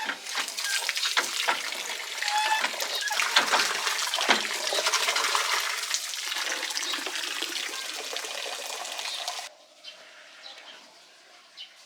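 Water rushing and splashing, a loud hiss with many small clicks, that cuts off suddenly near the end.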